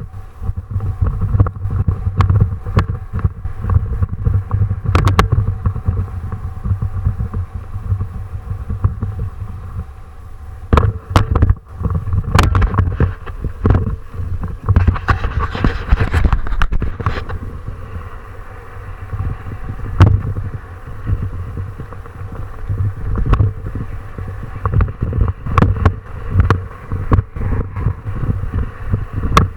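Steady wind buffeting the microphone as a low rumble, with scattered knocks and rattles throughout and a louder burst of noise about fifteen to seventeen seconds in.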